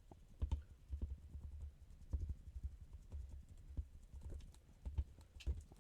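Irregular light scratchy strokes and taps with dull low knocks, from a paint brush being dry-brushed across a 3D-printed resin miniature.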